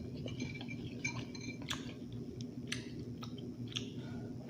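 A person chewing a mouthful of seafood, with irregular small wet clicks and smacks from the mouth.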